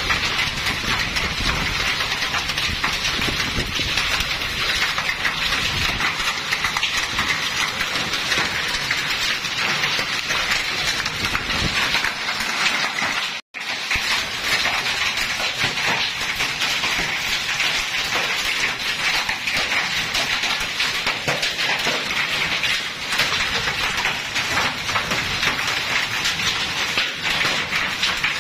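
Heavy rain mixed with hail pelting down: a steady, dense hiss made of countless small impacts. It breaks off for an instant about halfway through.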